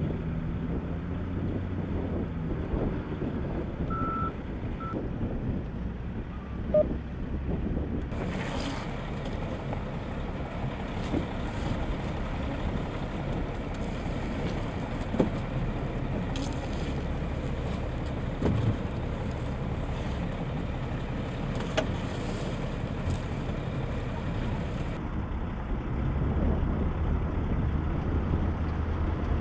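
Armored military truck's diesel engine idling steadily, with a few sharp knocks.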